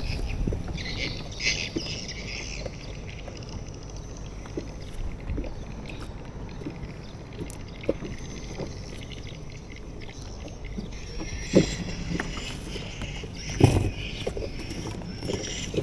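Low, steady rumble of wind on the microphone and water around a small wooden boat, with patches of higher hiss near the start and again near the end, and a few light knocks in the last few seconds.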